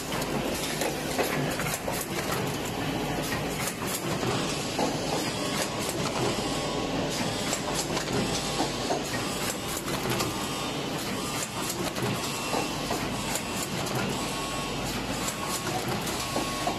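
Automatic wet wipe packing line running: steady machine noise with dense, rapid clicking and clatter from its mechanisms and conveyor.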